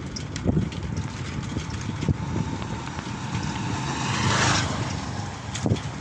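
Wind buffeting the microphone with a steady low rumble from riding a bicycle along a paved road, broken by a few short knocks from bumps in the road. A louder gust of hiss swells about four seconds in.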